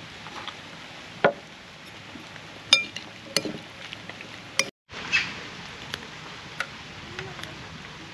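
Utensils and cookware clinking and knocking against one another: a handful of separate sharp clinks, one of them ringing metallic, over a steady hiss.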